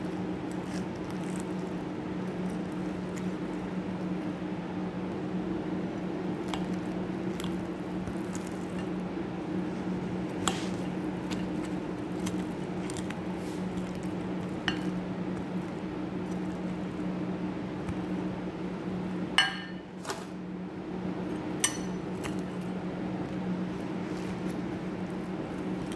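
Knife cutting through a rice-stuffed roast chicken in a glass baking dish: soft cutting sounds with a few sharp clinks of the blade against the glass, the loudest a ringing clink about two-thirds of the way through. A steady low hum runs underneath.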